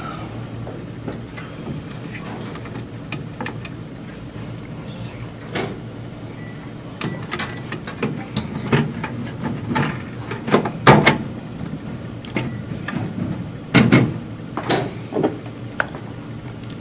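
Perforated sheet-metal shield cover being handled and set down over a flat-panel TV's chassis: a run of clicks, taps and metal clatters, with two louder knocks in the second half.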